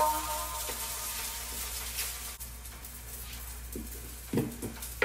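A few soft knocks of a cut potato and knife being set down on a kitchen countertop, about four seconds in, over a faint steady hiss and hum.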